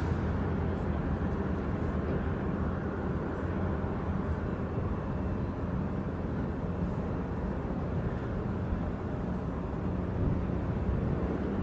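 Steady low engine rumble with a faint even hum, carrying across the harbour water.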